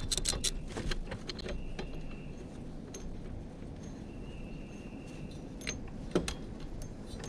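Ratchet wrench clicking in quick strokes for about the first second and a half as a nut on the mower deck is backed off, then a few scattered light metal clinks.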